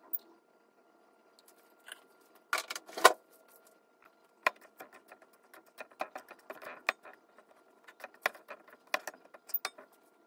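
Scattered light clicks, taps and rattles of small hard objects being handled, with a louder burst of rattling about two and a half seconds in.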